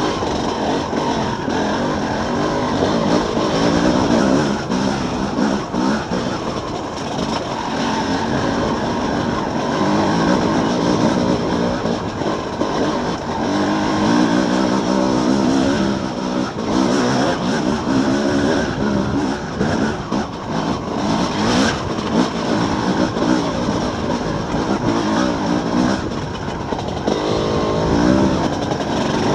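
Enduro dirt bike engine running under constant throttle changes, the revs rising and falling as it picks its way over rock, with the occasional knock from the bike. The revs climb near the end.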